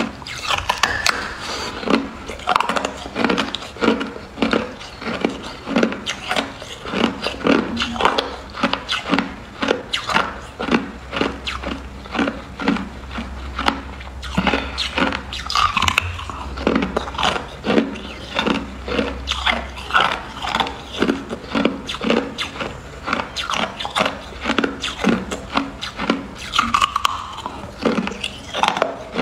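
Hard clear ice being bitten and chewed: a fast, irregular run of sharp crunches and cracks as teeth break through the ice.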